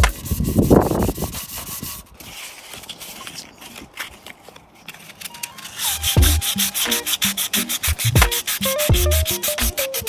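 Sandpaper rubbed by hand over the painted carbon frame and fork of a gravel bike, scratchy back-and-forth strokes scuffing off the original orange paint before a repaint. Music with a steady beat comes in about six seconds in.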